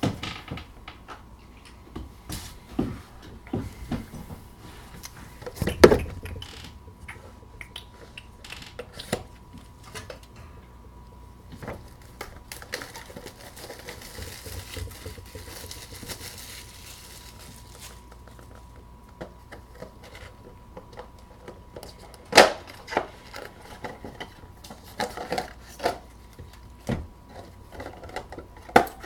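Gloved hands handling and opening a cardboard trading-card box: scattered taps, rubs and rustles of card, with sharper knocks about six seconds in and again near 22 seconds. A faint steady tone runs underneath.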